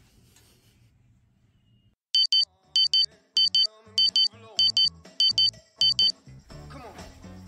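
Electronic alarm clock going off: loud double beeps, seven pairs evenly spaced a little over half a second apart, starting about two seconds in and stopping about six seconds in. Music comes in near the end.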